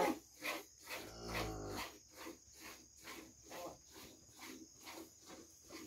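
Faint insect chirping in even pulses, about three a second. A brief low call from the cattle comes about a second in.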